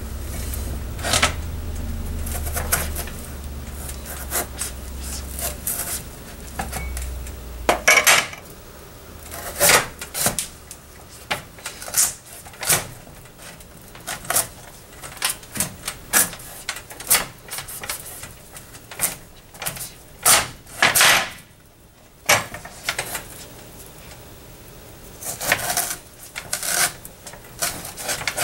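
Large kitchen knife cutting a tough carnival squash on a cutting board: repeated sharp knocks of the blade against the board and short rasping scrapes as it forces through the hard rind and firm flesh. A low hum runs under the first eight seconds or so.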